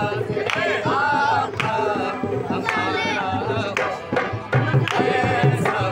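Qawwali music: a man singing over a harmonium melody, with a two-headed barrel drum (dholak) keeping a steady beat. The drum strokes get heavier from about four and a half seconds in.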